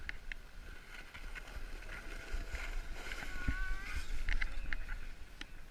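Plastic sled sliding over snow: a steady scraping hiss over a low rumble, with a few faint clicks.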